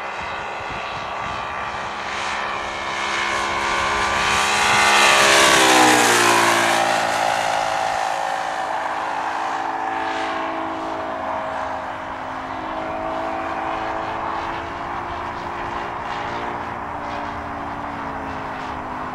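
ASP 400 radial engine of a large radio-controlled F4U Corsair model running in flight. It gets louder as the model flies past, and the pitch drops sharply about six seconds in as it goes by, then it carries on steady and quieter.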